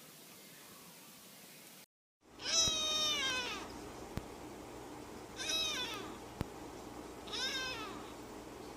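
A cat meowing three times, starting about two and a half seconds in. The first meow is long and falls in pitch, and the next two are shorter, about two seconds apart.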